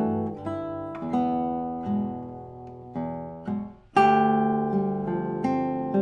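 Classical nylon-string guitar played solo fingerstyle: plucked notes and chords ring and die away, and the sound thins almost to nothing. About four seconds in, a loud chord starts a steadier run of notes.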